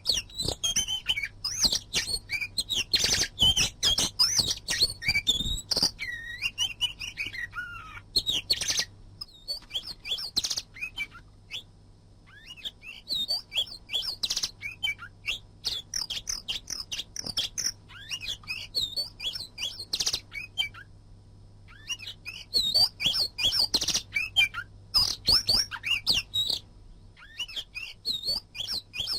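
Oriental magpie-robin (kacer) singing a fast, varied song of chirps and whistles, with short pauses about twelve and twenty-one seconds in. A faint steady low hum runs underneath.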